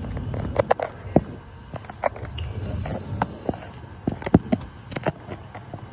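Scattered sharp clicks and knocks at uneven intervals over a low outdoor rumble, with a brief high hiss between about two and a half and four seconds in.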